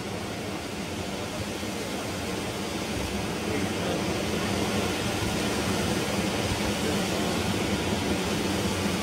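Hand-held bamboo tube firework (tezutsu hanabi) spouting its fountain of sparks: a steady rushing roar that grows somewhat louder over the second half.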